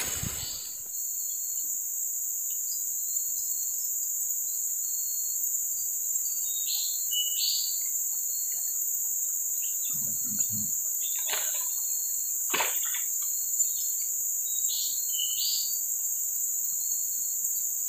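Steady, high-pitched drone of an insect chorus in riverside forest, with a short bird call about seven seconds in and again near the end. A few faint knocks come about two-thirds of the way through.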